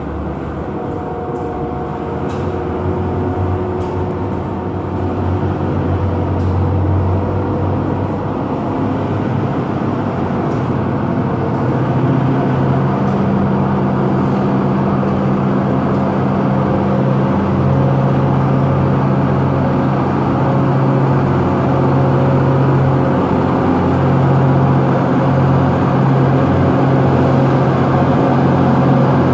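Diesel-electric locomotive engines running as a string of locomotives creeps closer, a low steady drone that grows gradually louder, with deeper engine tones coming in strongly about halfway through.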